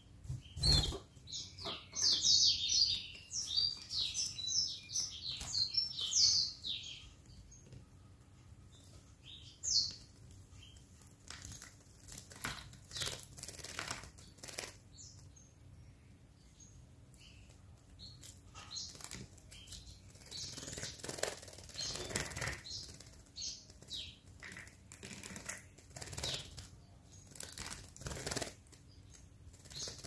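Domestic canary bathing in a small water fountain, fluttering its wings in the water in repeated bursts of splashing. A quick run of high chirps comes in the first several seconds.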